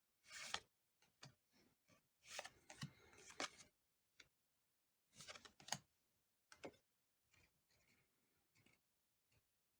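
Pokémon trading cards and their packaging being handled: short bursts of rustling and sharp clicks, coming and going with silence between them.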